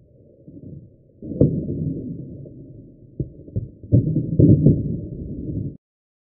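Skateboard wheels rolling on asphalt, with several sharp clacks of the deck popping and hitting the road during a kickflip attempt. The sound is muffled and cuts off suddenly near the end.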